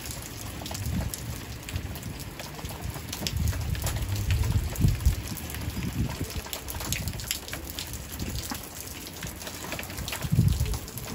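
Rain falling, with many small drop ticks, and low rumbles about a third of the way in and near the end.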